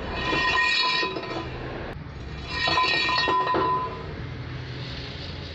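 Metal pipe sliding and clinking against a steel angle-iron channel, in two bursts of about a second each, the first near the start and the second around the middle, with a ringing metallic tone.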